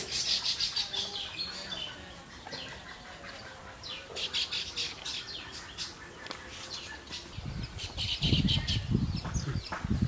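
Baya weavers chattering: runs of rapid, high chirps in bursts at the start, around the middle and again near the end. A low rumbling noise joins in over the last couple of seconds.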